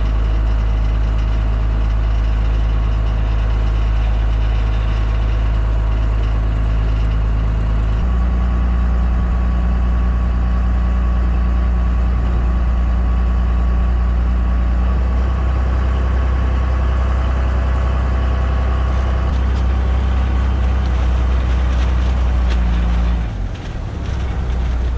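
Fishing boat's engine running steadily under way, its note changing about eight seconds in, then dropping off suddenly near the end as the throttle comes back.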